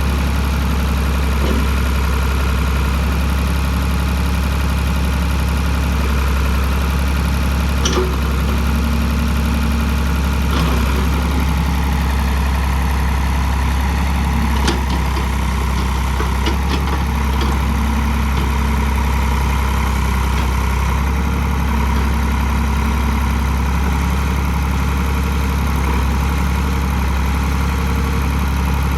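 Ford 545 backhoe loader's engine idling steadily, with a couple of brief sharp clicks along the way.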